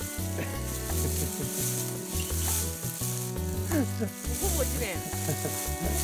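Dry fallen leaves rustling and crackling as a person shifts on a leaf-covered slope, loudest between about one and a half and three seconds in, over background music.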